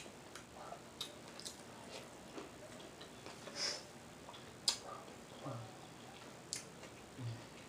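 Close-miked eating of a seafood boil: sharp wet mouth smacks and clicks every second or so, the loudest about two-thirds of the way through, with a short hissing slurp near the middle and a couple of brief low hums.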